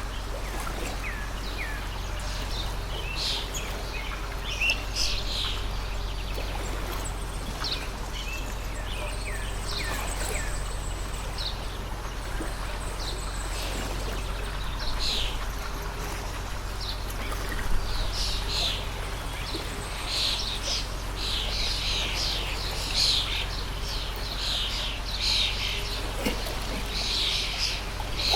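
Small birds chirping: many short, quick chirps that grow busier in the second half. Underneath runs a steady low hum and an even background rush.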